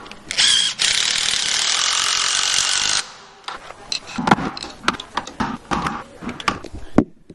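A cordless DeWalt impact driver with a right-angle attachment drives a concrete screw into the pocket door frame's floor bracket. A short burst comes first, then about two seconds of steady, rattling hammering. After that there are scattered light clicks and knocks.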